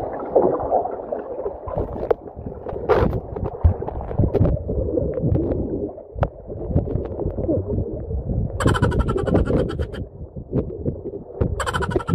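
Pool water heard through a camera held under the water: a muffled, crackly rumble and gurgle of moving water, with a short crackling hiss twice near the end.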